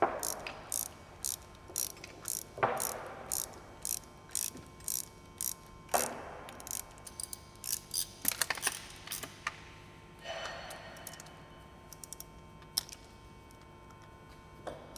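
Hand ratchet wrench clicking while tightening the bolts of a supercharger pulley bracket on a Ford Coyote V8: a regular run of clicks about two a second with a few louder knocks, then a quicker flurry of clicks before it thins out to scattered clicks in the second half.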